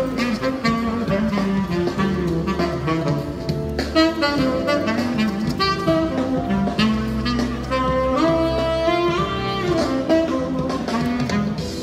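Saxophone playing a jazz melody, with a bass line underneath.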